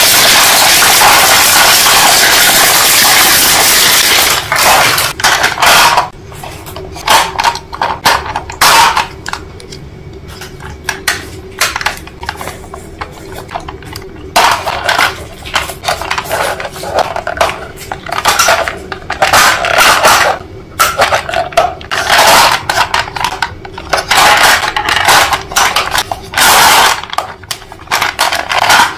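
About four seconds of steady, loud rushing noise that stops abruptly, then irregular clattering: sharp knocks, clicks and scrapes of hard objects being handled.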